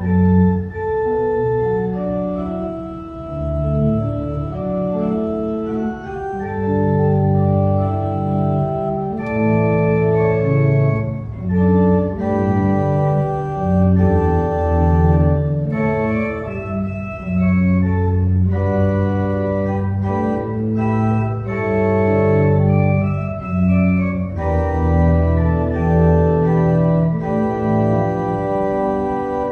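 Organ playing a slow piece in sustained chords over a bass line, the held notes changing every second or two.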